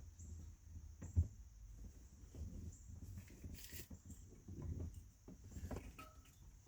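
Handling noises: scattered light knocks and rustling, with one sharper knock about a second in and a brief hiss near the middle, over a low steady rumble.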